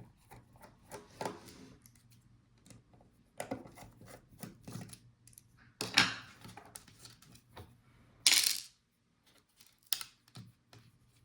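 Small scattered clicks, taps and light scrapes of tools and hands on a laptop's display parts while its webcam module is taken out, with a short scraping rasp about eight seconds in.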